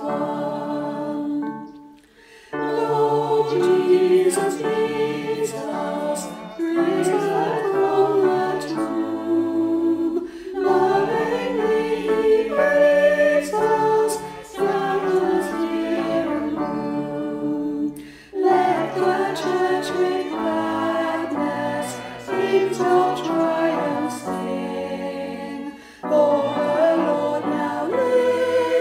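Choir singing, several voices together holding sustained notes, in phrases of about eight seconds with brief pauses between them.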